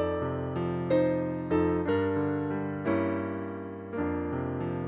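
Piano music: slow chords struck about once a second, each ringing and fading before the next.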